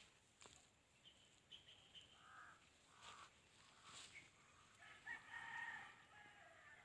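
Rooster crowing faintly, one drawn-out crow starting about five seconds in, with a shorter call and a few faint clicks before it.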